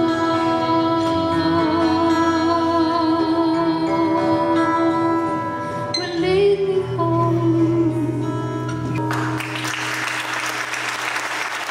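Live song with a woman singing long held notes over acoustic guitar and band, reaching its end; about nine seconds in, the audience breaks into applause.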